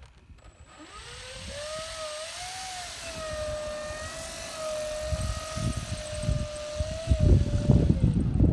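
A machine's whine that rises in pitch about a second in and then holds roughly steady with a slight waver, over low rumbling that grows louder near the end.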